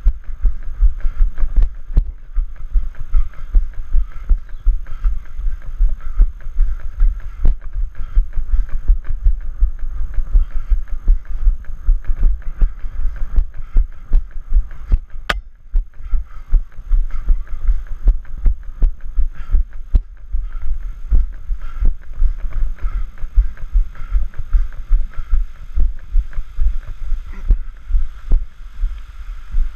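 A runner's footfalls on a dirt trail, heard as regular low thuds jolting a body-worn camera, about three strides a second.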